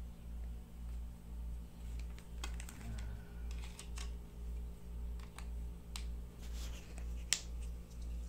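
Small plastic clicks and taps from hands handling a Huawei pocket Wi-Fi router and its box, starting about two seconds in, with one sharper click near the end. Under them a steady low hum pulses a little under twice a second.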